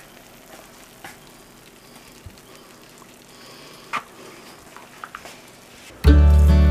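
Faint crackling and small clicks over a low hiss, with one sharper click about four seconds in. About six seconds in, loud acoustic guitar music starts with a strong bass line.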